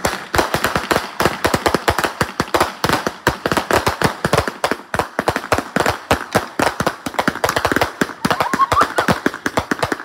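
Fireworks crackling: a dense, irregular rattle of sharp pops, many a second, as a ground firework throws up showers of sparks.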